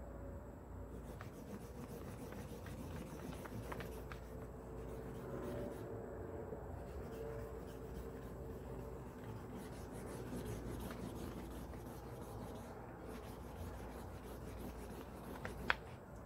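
Steady scratchy rubbing of a hand tool worked along a leather strap held against a wooden straightedge, with one sharp click near the end.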